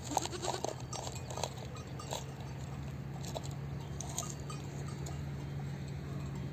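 Bells on grazing livestock clinking irregularly, most densely in the first two seconds, over a steady low hum.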